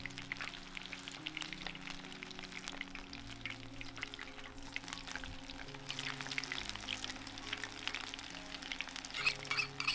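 Pakora batter frying in a pan of hot oil: a dense, steady crackle and sizzle, with a few louder pops near the end. Soft background music with held notes plays underneath.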